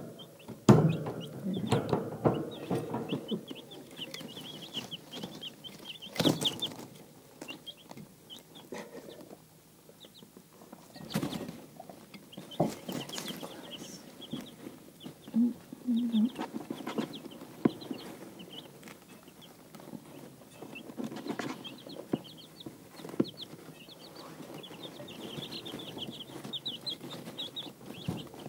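Easter Egger chicks peeping: many short, high chirps repeating throughout. A few sharp knocks close by cut in, the loudest about a second in.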